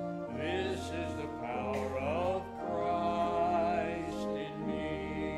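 Church organ holding sustained chords while a man sings a hymn over it, his voice wavering with vibrato.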